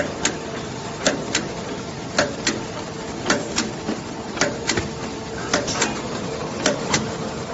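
Double-sided tape applicator machine running: a pair of sharp clacks about once a second, keeping time with the boxes feeding through, over a steady machine hum.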